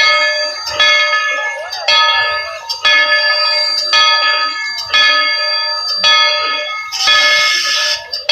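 Bell of steam locomotive No. 190 ringing steadily, about one stroke a second, each stroke ringing on into the next.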